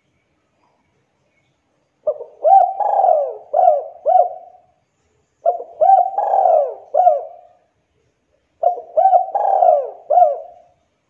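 Spotted dove (tekukur) cooing: three repeated phrases of several notes each, about three seconds apart.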